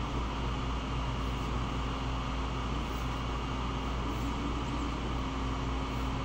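Steady whir of a Creality Ender-3 Pro 3D printer's cooling fans with a constant low hum, the printer sitting idle while its bed heats up before printing.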